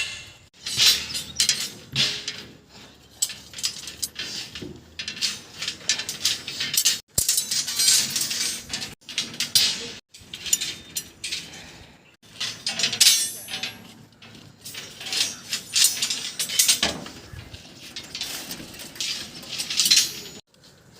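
Irregular metallic clinks and scrapes of hard objects knocking and sliding together, loud, with a few brief dead breaks.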